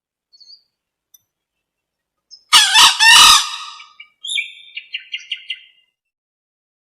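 Green junglefowl calling: a loud, harsh two-part call about two and a half seconds in, followed by a quick run of about six short, higher notes.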